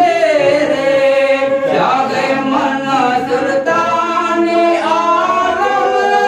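A man's voice singing a devotional chant unaccompanied into a hand microphone: long held notes that slide and waver in pitch, phrase after phrase, with short breaks between them.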